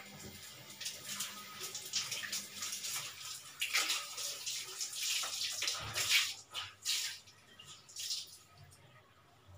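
Water running from a kitchen tap and splashing as dishes are rinsed in the sink, in uneven gushes that die away near the end.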